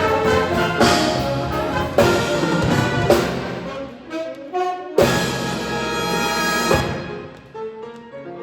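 Orchestral-style music led by brass, with loud accented chords struck about once a second. Partway through it thins to a softer passage of single notes, then a strong chord hits about five seconds in and dies away to soft, spaced notes near the end.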